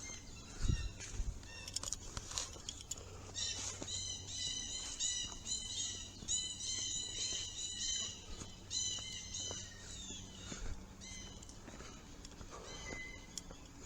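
A bird calling in a quick series of short repeated notes, about three a second, pausing once and going on briefly before it stops, with light footsteps and clicks underneath.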